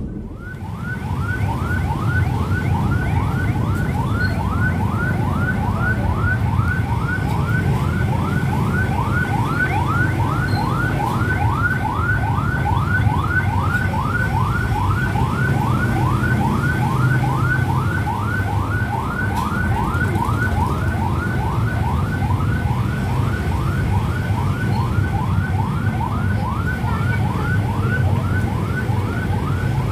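A siren sounding a fast yelp, short rising sweeps repeating about three times a second without a break, over the low running of motorcycle engines.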